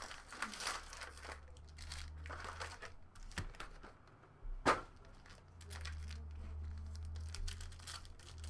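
Crinkling and tearing of plastic wrapping as a hobby box of trading cards and its foil packs are opened by hand, with a sharper snap about halfway through.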